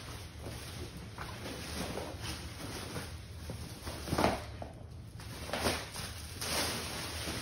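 Clear plastic wrapping crinkling and rustling as it is handled and pulled off a rolled inflatable paddle board, in a string of short rustles, the loudest about four seconds in.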